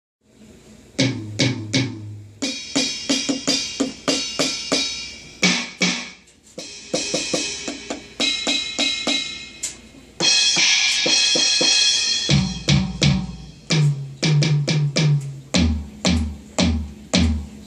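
Electronic drum kit sounds from a Roland TD-7 sound module, played as a fast groove of kick, snare and cymbal hits with sustained cymbal washes. It ends in a tom fill that steps down in pitch: high toms, then lower toms, then four deep floor-tom hits.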